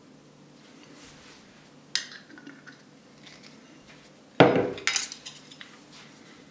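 Cutlery and a plate being handled: a sharp click about two seconds in, then a louder knock followed by a few clinks about halfway through.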